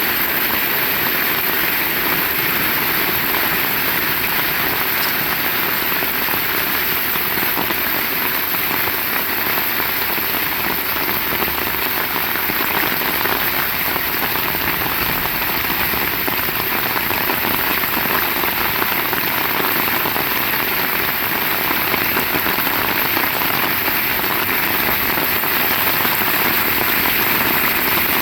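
Heavy rain falling steadily, an even hiss of drops with no breaks.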